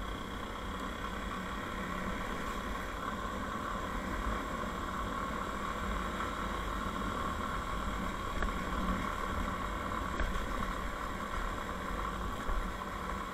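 Motorcycle engine running steadily, without revving.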